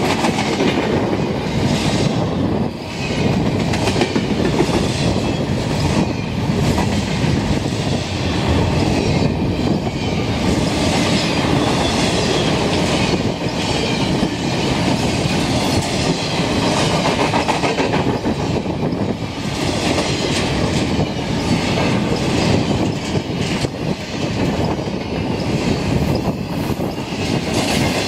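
A freight train of double-stack intermodal well cars rolling past, a steady rumble and clatter of steel wheels on rail with clicks over the rail joints.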